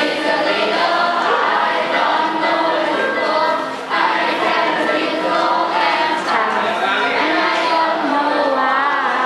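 A group of children singing together in unison, with a brief drop in the singing about four seconds in.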